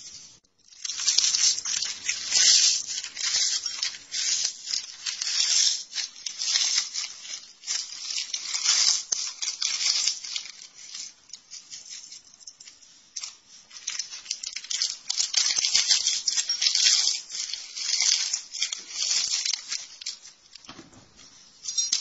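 Crisp crackers being crushed and crumbled by hand from their plastic packet into a ceramic bowl: crackling of breaking cracker pieces and crinkling of the wrapper, in quick irregular bursts with short lulls.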